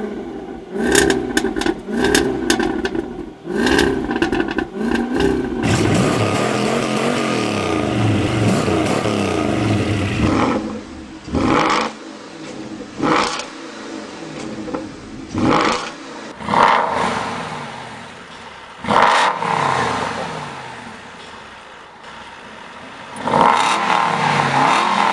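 V8 supercar engines revving through their exhausts. There are quick throttle blips at first, then a stretch of steady running with the engine note climbing and dropping. From about ten seconds in come single sharp revs every one to three seconds, each dying back down toward idle.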